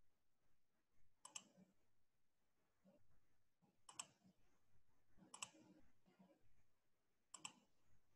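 Faint computer mouse clicks, four of them spread a second or more apart, most heard as a quick double tick of press and release.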